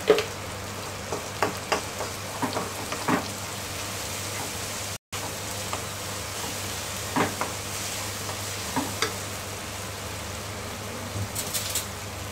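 Onion-tomato masala sizzling in a non-stick wok, freshly added ginger-garlic paste frying in the oil, while a wooden spatula stirs it with scattered knocks and scrapes against the pan. The sound cuts out for a moment about five seconds in.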